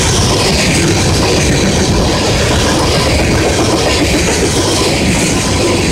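Long freight train of tank cars rolling past close by: a loud, steady rumble and rattle of steel wheels on the rails.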